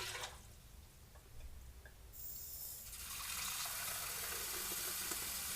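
Water running steadily from a kitchen tap to fill a measuring cup, starting about two seconds in and getting louder a second later.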